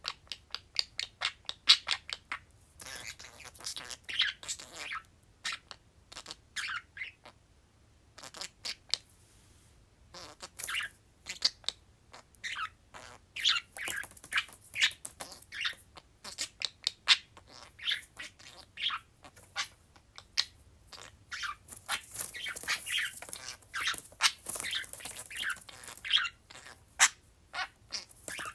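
Two pet budgerigars chirping and chattering in a rapid string of short chirps and warbles, with a short lull about eight seconds in.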